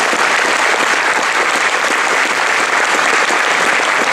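Audience applause: many hands clapping in a dense, steady wash, greeting the end of a sung performance.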